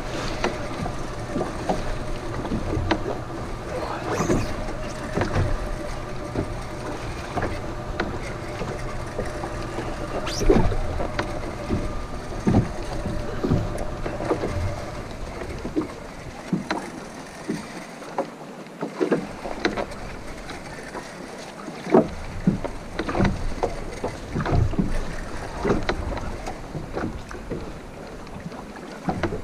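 Small waves lapping and slapping against the hull of a small open boat at rest, with many irregular short knocks.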